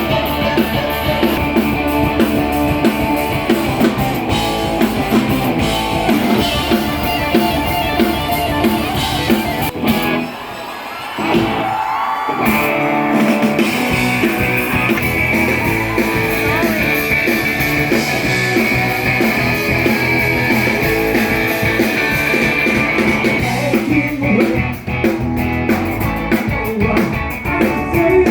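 Live rock band playing, with electric guitar, drums and vocals. The band briefly drops out for a short break about ten seconds in, then comes back in.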